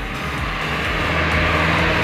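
A motor vehicle passing along the road, its noise swelling toward the end, over background music.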